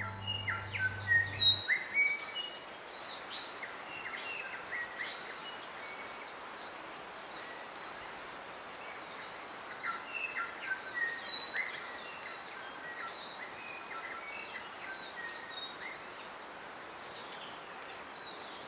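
Forest birds calling: many short chirps and whistles, busiest in the first dozen seconds and sparser later, over a steady hiss of bush ambience. The tail of background music cuts off about a second and a half in.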